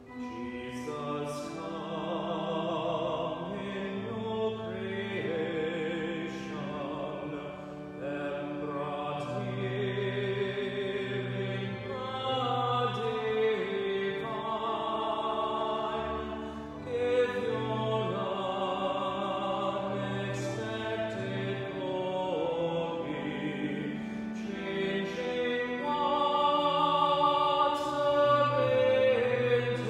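A man singing solo in a classical style with vibrato, over sustained keyboard accompaniment. It grows louder in the last few seconds.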